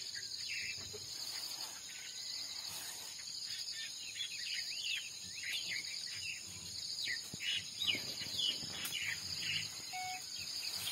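Many wild birds chirping with short, mostly falling calls, over a steady high insect drone.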